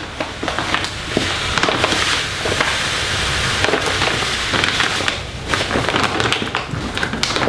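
Cat litter pouring from a large bag into a disposable litter box: a steady hiss of granules, with crinkling and rustling of the bag as it is opened and tipped.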